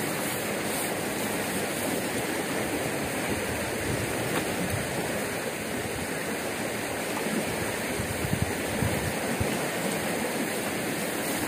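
Steady rush of a swollen, muddy creek running fast in flood, with a few brief low bumps about eight seconds in.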